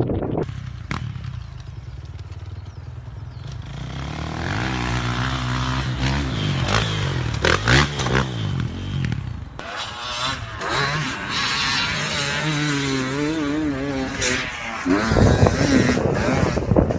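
Dirt bike engines running and revving across several short clips, their pitch rising and falling, with a few sharp clatters near the middle. The sound changes abruptly a little past halfway.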